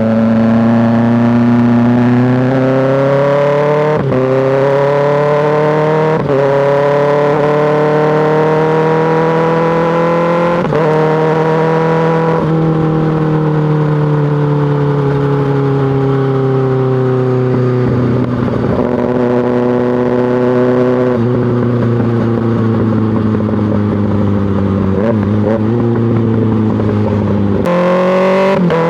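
2024 Kawasaki ZX-6R's inline-four engine through an M4 GP slip-on exhaust, accelerating up through the gears. The revs climb and drop back at four quick upshifts in the first dozen seconds. The engine note then falls steadily as the bike slows, and rises again near the end.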